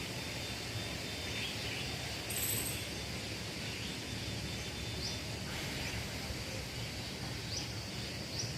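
Steady outdoor background noise with a few faint, short high chirps, as of small birds or insects, and a brief soft hiss about two seconds in.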